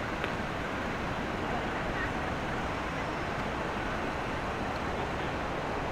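Steady city street ambience: a continuous wash of road traffic noise with no single event standing out.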